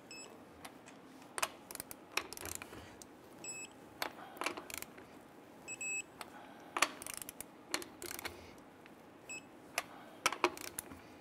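A socket and click-type torque wrench clicking and knocking on an alloy wheel's lug nuts as they are torqued down, in sharp irregular clicks. A short high beep sounds about every three seconds.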